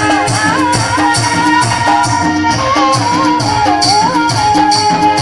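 Uttarakhandi folk dance music: an ornamented, wavering melody over a steady drum beat with jingling percussion, about three beats a second.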